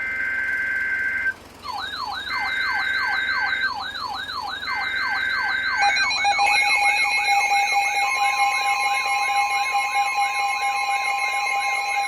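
Emergency Alert System signalling: three one-second bursts of the two-pitch SAME data-header tones, overlaid from about 2 s by a repeating swooping siren tone, about two sweeps a second. About 6 s in, the steady EAS attention tone comes on, a second pitch joins it about 8 s in, and a fast electronic beeping sounds above, marking the start of a new warning.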